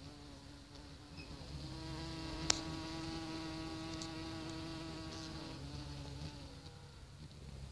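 Hummingbird hawk moth hovering, its wingbeats giving a steady buzzing hum that grows louder about two seconds in and fades away near the end. A single sharp click sounds about two and a half seconds in.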